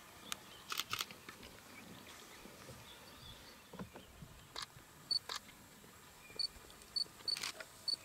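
Quiet outdoor ambience with a few sharp clicks, and in the second half several short, high-pitched chirps.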